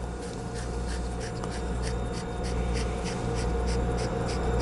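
Sherline three-jaw self-centering chuck being turned by hand, its jaws running in on the scroll toward the centre, with faint metallic ticks about three a second over a steady low hum.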